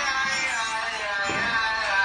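Music from a punk song cover, with held tones and one sliding pitch about halfway through.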